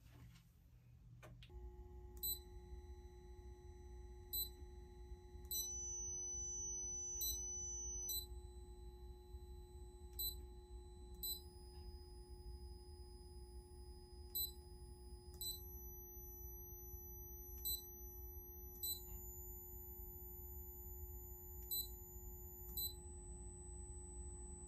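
Electrical hum and whine from powered amplifier circuitry and bench test gear. A steady low hum and a steady mid tone sit under thin high-pitched whines that switch pitch every second or two, with a small tick at each switch.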